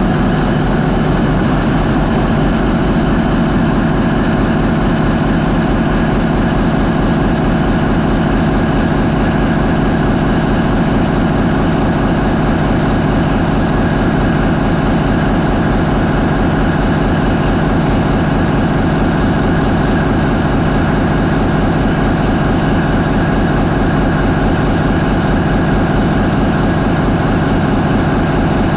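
MAN 20V28/33D STC twenty-cylinder V diesel marine main engine running steadily at 550 RPM.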